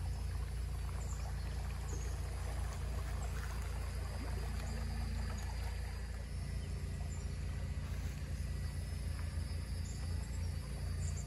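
Electric trolling motor running steadily, pushing a small wooden poling skiff along the water, heard as a constant low hum and rumble.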